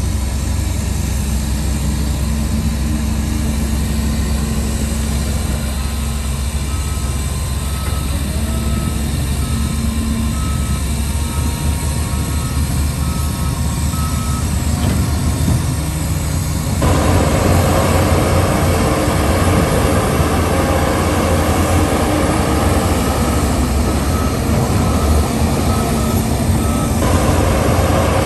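Heavy diesel engines of a dump truck and a bulldozer running steadily, with a reversing alarm beeping at an even pace in two stretches as the truck backs up. The engine noise grows louder a little past halfway and stays up.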